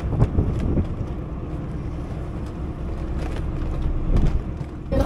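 Wind buffeting the microphone on a small boat at sea, a steady low rumble that rises and falls, with a few faint ticks.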